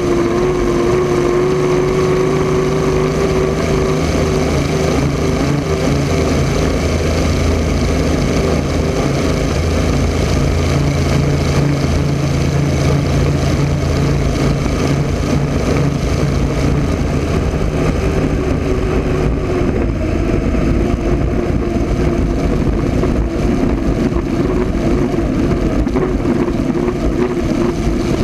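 Rolls-Royce Griffon V12 piston engine of the 1980 Miss Budweiser unlimited hydroplane running hard at speed, heard from on board with rushing water and wind. The engine note is steady, shifting slightly about two-thirds of the way through.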